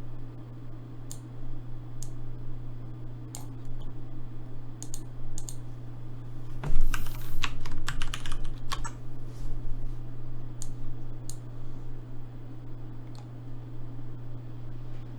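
Computer keyboard typing: scattered key clicks with a quick burst of keystrokes in the middle, over a steady low electrical hum.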